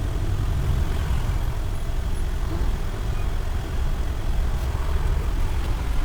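Steady low rumble of passing street traffic, with heavy vehicles among it.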